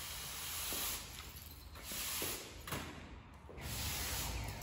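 Push broom swept in several long scraping strokes across a bare concrete floor, each stroke about a second long with short pauses between, clearing broken glass and debris.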